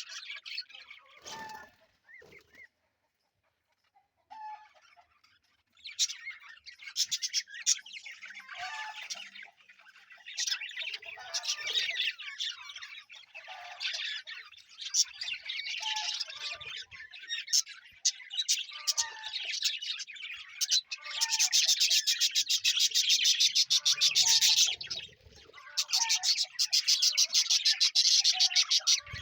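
A small flock of budgerigars chirping and chattering together. The chatter drops to a brief lull about two seconds in and picks up again densely about six seconds in, with stretches of fast, rattling chatter in the last third.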